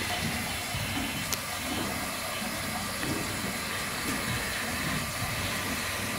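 Steady hissing background noise with a low, uneven rumble underneath.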